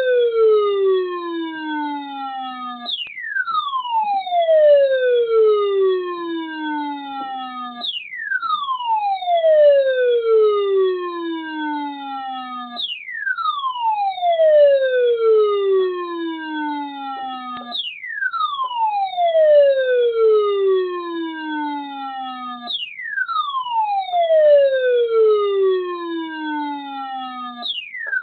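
Midland ER310 weather radio sounding its alert alarm for an incoming weather warning: an electronic siren-like tone that starts high and glides steeply down, repeating about every five seconds.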